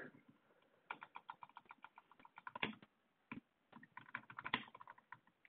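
Faint typing on a computer keyboard: a quick run of keystrokes starting about a second in, a short pause with a single keystroke, then a second run.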